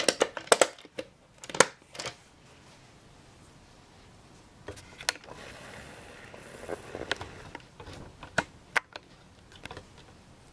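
Plastic clicks and knocks as a hoverboard's plastic outer shell is handled and pressed back into place, several in quick succession in the first two seconds, then scattered lighter ticks and rustling.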